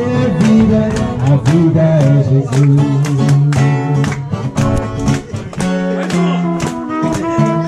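Background music led by a guitar, with regular strummed strokes.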